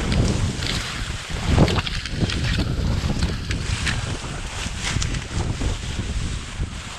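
Strong wind buffeting the microphone with a steady low rumble, and scattered short rustles and crunches of someone walking through brush and snow.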